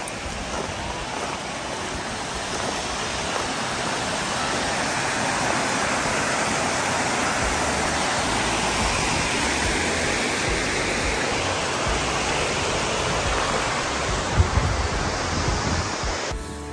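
Mountain stream rushing over rocks with a small cascade: a steady rush of water that grows louder toward the middle, then eases. A brief knock near the end.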